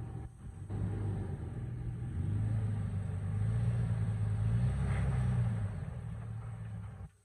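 Toyota FJ Cruiser's 4.0-litre V6 running at low revs as it crawls over rocks. The engine note rises a little in the middle and eases back off.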